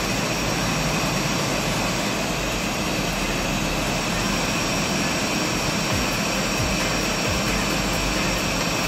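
Hot air rework gun blowing a steady rush of air with a thin high-pitched whine in it. It is heating a shorted surface-mount capacitor on an LED TV's T-con board so the part can be desoldered and pulled off with tweezers.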